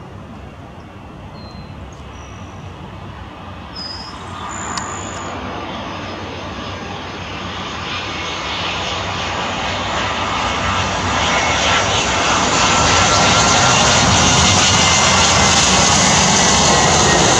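Airbus A320-232 airliner's twin IAE V2500 turbofan engines on landing approach, a jet whine and rumble that swells steadily over the first dozen seconds as the plane comes close, then holds loud as it touches down on the runway.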